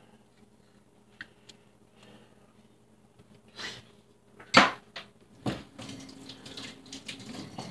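Kitchen utensils and dishware being handled: a loud clunk a little past halfway, another knock about a second later, then a couple of seconds of rustling and clattering.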